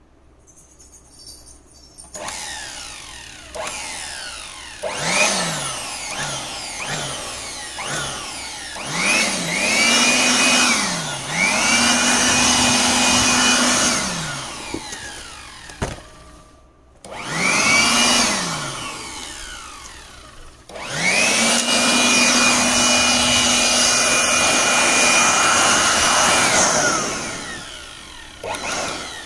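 Small corded electric hand blower switched on and off repeatedly. Its motor whine rises as it spins up and falls as it winds down, first in several short bursts, then in longer steady runs of a few seconds, with air rushing from the nozzle.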